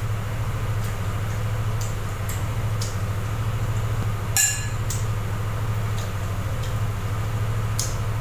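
A metal spoon clinking against an aluminium pot while eating soup: one clear ringing clink about four seconds in and a few faint clicks. A steady low hum runs underneath.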